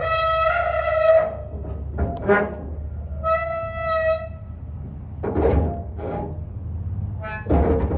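Background music: two long held notes about three seconds apart, then shorter sung or played phrases, over a steady low hum.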